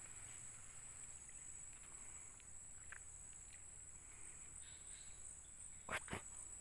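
Steady, high-pitched buzzing of night insects such as crickets, with a second insect pulsing about twice a second from around four seconds in. Two sharp clicks come near the end.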